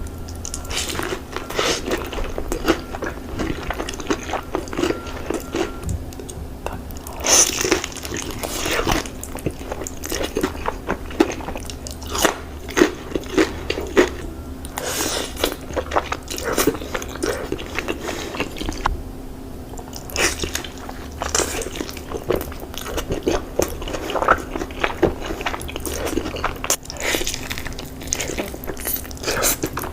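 Close-miked eating: a person biting and chewing crispy fried chicken, with many short crunches in quick succession.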